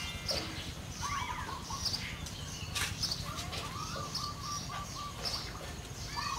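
Small birds chirping and twittering, one repeating a short high chirp about once a second, over a steady low rumble.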